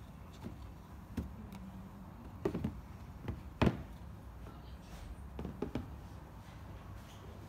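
Handling noise: a handful of short taps and knocks as slide sandals are set down and moved about on a cardboard box, the loudest about three and a half seconds in, over a low steady hum.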